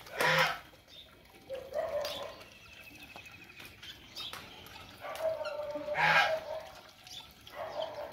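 Water splashing from a large steel bowl, once just after the start and again about six seconds in. Birds call faintly in between.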